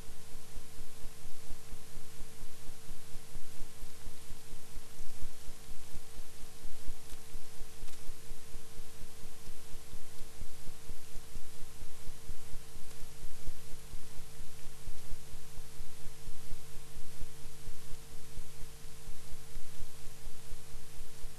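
Super 8 film projector running: a steady motor hum with a fast, even flutter from the film transport.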